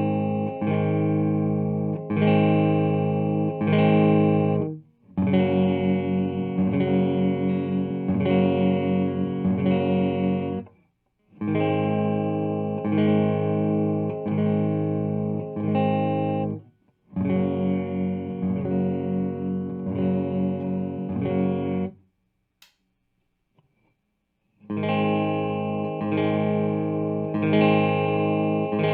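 Squier Classic Vibe Starcaster electric guitar played through an amplifier: chords struck in phrases of a few seconds, with short breaks between them and a pause of about two seconds near the end.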